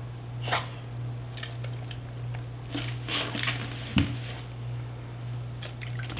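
Labrador retriever giving a short, low burp about four seconds in, among small sniffing, mouth and movement noises. A steady low hum runs underneath.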